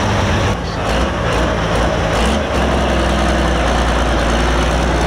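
Limited Pro Stock pulling tractor's turbocharged diesel engine running loud and steady, with brief dips in level about half a second and two and a half seconds in.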